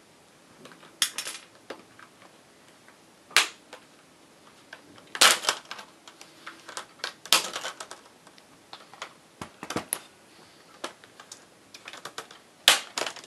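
Plastic retaining clips of an Acer Aspire 5552G laptop's screen bezel popping loose as the bezel is pried off by hand: about half a dozen sharp snaps with smaller clicks between. The popping means the clips are releasing, not breaking. A loose broken piece of the bezel also falls off.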